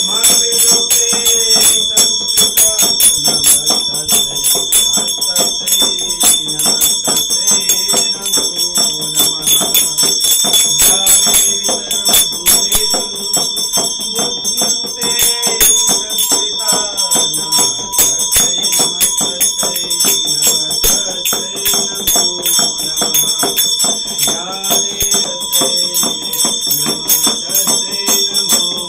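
Small brass puja hand bell rung rapidly and without pause, as in Hindu worship, its ringing sustained over devotional music with a sung melody.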